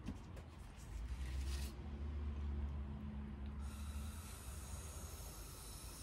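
Breath blown through a plastic drinking straw. A short hissing puff about a second in, then a longer steady blow from a little past halfway that stops at the very end, with a low rumble under the first part.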